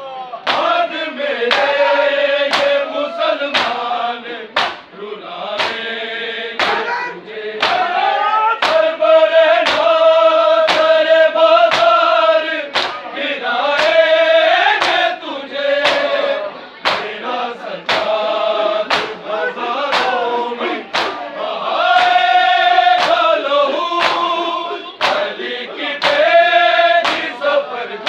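Men's voices chanting a noha, a Shia lament, in chorus, with a steady beat of open-handed blows on bare chests (matam) keeping time.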